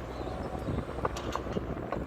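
Engine of paving machinery running with a low rumble, and a few sharp clinks of concrete paving stones knocking together in the second half.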